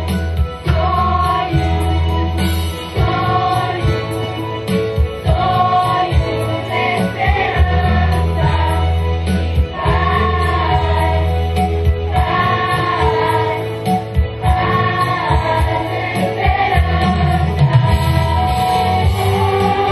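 Children's choir singing together, with a low instrumental bass line underneath.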